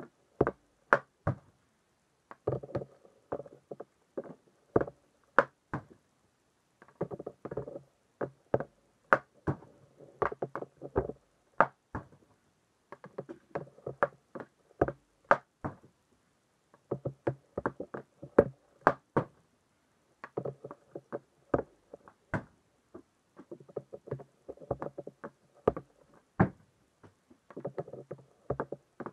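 Hockey stick and puck on a plastic shooting surface: bursts of stickhandling, the blade scraping and tapping the puck, broken every few seconds by sharp cracks of shots and the puck striking.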